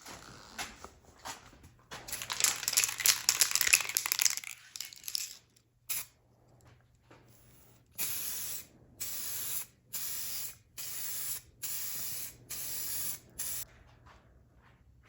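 Aerosol spray-paint can spraying in passes: a longer, rougher stretch of spray in the first few seconds, then six short, even bursts of hiss about a second apart.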